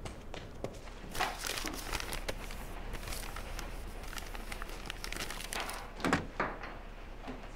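Rummaging: paper and cloth rustling and crinkling as things are handled and moved, with a thud about six seconds in.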